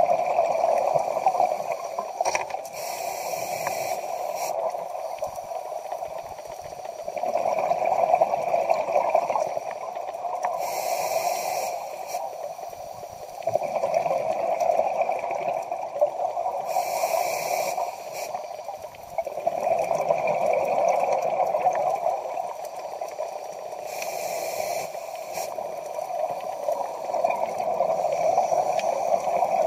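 Scuba regulator breathing heard underwater: a short hiss on each inhale, then several seconds of bubbling exhaust, in a slow cycle of four breaths.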